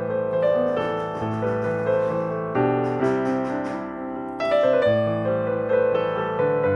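Background piano music: a gentle melody over sustained chords.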